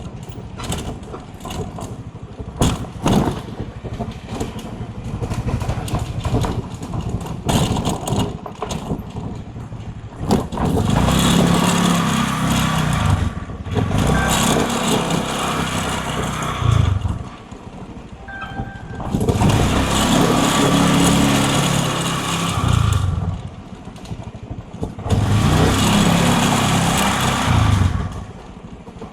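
Motor vehicle engines in traffic: light clattering at first, then three loud stretches of engine noise, each several seconds long, that build and die away.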